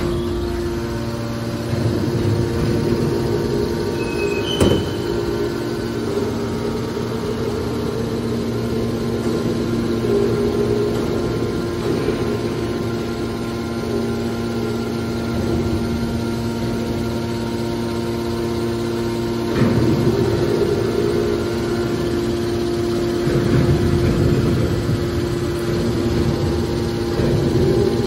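Hydraulic power unit of a scrap metal baler, an electric motor driving a hydraulic pump, running with a steady hum. A single knock comes about five seconds in, and the sound swells a few times later on.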